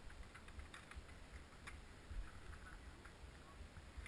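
Faint scattered ticks and a low rumble from a mountain bike rolling down a dirt and rock trail.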